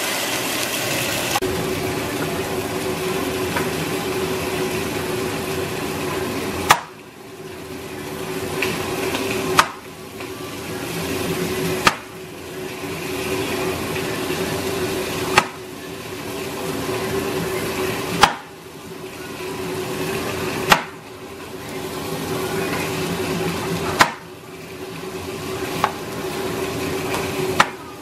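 Steady frying hiss with a low hum from the stovetop. It is broken every two to four seconds by a sharp click, after which the sound drops suddenly and builds back up over a couple of seconds.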